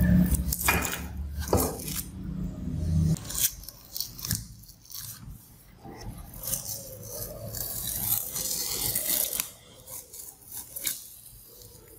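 Masking tape being peeled off a freshly painted metal frame, giving irregular crackling rips and rubbing as gloved hands pull it away. A low rumble runs under the first three seconds.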